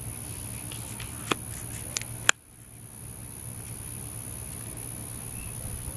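A few short clicks and taps as a fabric-covered folding solar panel is handled and folded shut, the sharpest and loudest about two seconds in, over a steady low background hum.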